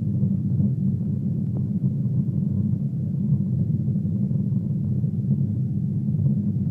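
Boeing 777 airliner's steady low rumble of engines and airflow, heard as even cabin noise with no changes in pitch or level.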